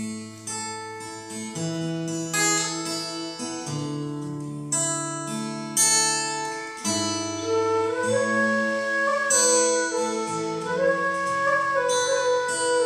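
Acoustic guitar playing chords, joined about eight seconds in by a bamboo transverse flute playing a melody that slides between notes.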